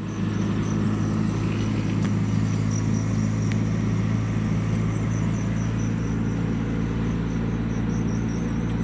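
Ford Fiesta Mk7 with a straight-piped exhaust, heard from inside the cabin while cruising at steady low revs, about 1,700 rpm under light load. The engine and exhaust give a steady low drone.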